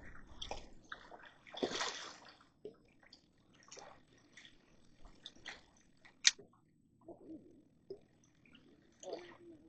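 Faint, scattered splashing and handling noises at the water's edge, with a sharp click about six seconds in.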